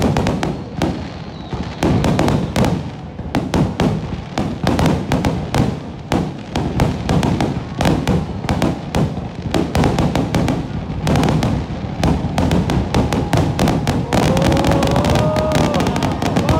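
Aerial fireworks shells bursting overhead in quick succession, with booms and crackling. Near the end the bursts merge into a dense, continuous barrage.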